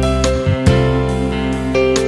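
Background music led by plucked guitar over a steady bass line.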